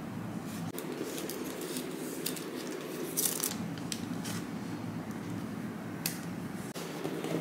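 Paper and plastic packaging being handled by hand: short crinkles and rustles several times, over a steady low hum.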